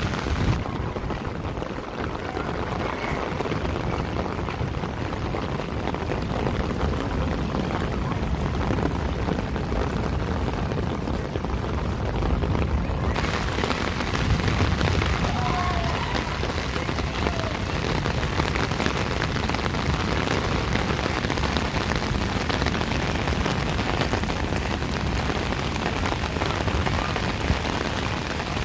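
Steady rain falling on a wet paved street, an even hiss. For about the first dozen seconds it sounds muffled, then it opens up and sounds clearer.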